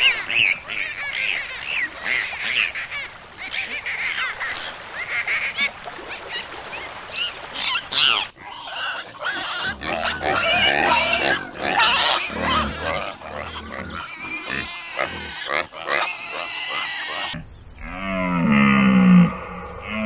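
A run of three animal calls. First a dolphin gives many quick whistles that rise and fall. From about eight seconds in, pigs grunt and squeal. Near the end come repeated low, falling bellows.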